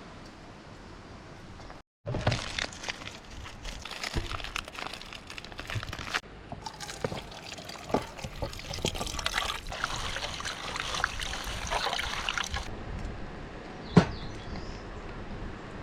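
Water pouring and splashing, with many small clicks and knocks of handling, in several short edited shots. One sharp knock about 14 seconds in.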